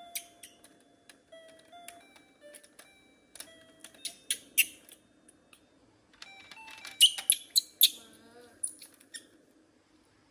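Children's electronic toy keyboard with its keys pressed one at a time, giving short beeping notes that step between different pitches, mixed with sharp plastic clicks and taps that are loudest a little past the middle.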